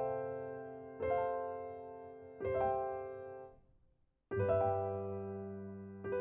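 Piano-like keyboard music: slow chords struck one after another, each left to ring and fade, with a short break about two-thirds of the way through.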